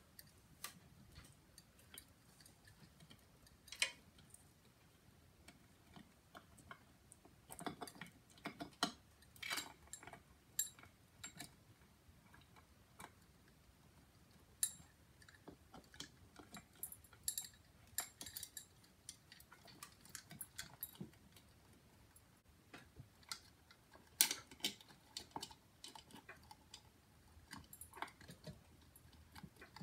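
Irregular light clicks and small clinks of hard objects being handled, some in quick clusters, with one sharper click about two-thirds of the way through.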